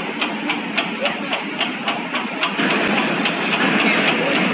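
CIL-QQ-285 automatic cigarette rolling paper folding machine running, with a steady clatter at about three strokes a second. A louder hiss joins about two and a half seconds in.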